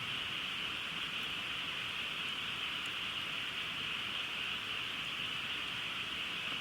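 A dense chorus of frogs calling all at once, blending into one steady high-pitched buzz, with a few faint crackles from a campfire.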